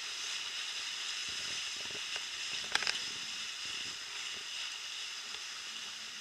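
Steady rushing hiss of a sailboat under way, with a brief crackle of clicks a little before halfway through.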